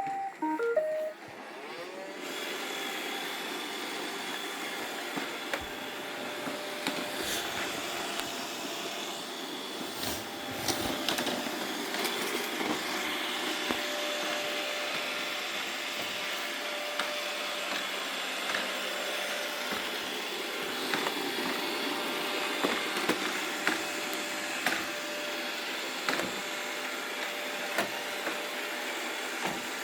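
Robot vacuum cleaner starting up about two seconds in, after a few short tones, then running steadily with scattered clicks and knocks.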